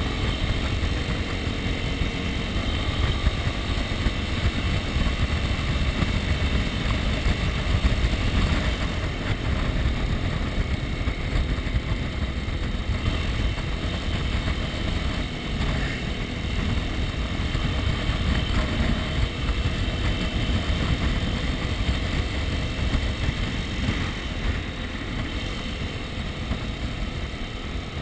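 Dirt bike engine running at a steady cruise while riding, heard close up from the rider's chest-mounted camera.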